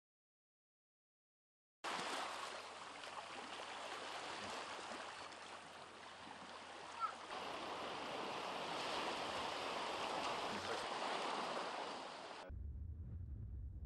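Sea surf washing on the shore, a steady rushing noise that starts suddenly after about two seconds of dead silence and cuts off abruptly near the end, leaving a low hum.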